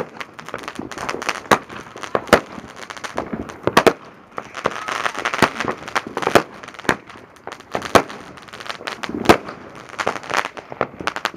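Fireworks going off: an irregular series of sharp bangs and pops, about a dozen louder reports spread through, over a continuous crackle.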